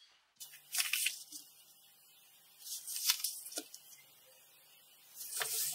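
A steel ruler and a large sheet of drawing paper being handled and shifted while pencil marks are made against the ruler: brief scraping and rustling, three times.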